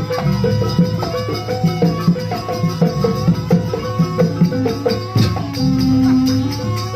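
Live jaranan music from a Javanese gamelan-style ensemble: struck pitched percussion in a steady repeating rhythm over a held melody tone, with a longer low held note near the end.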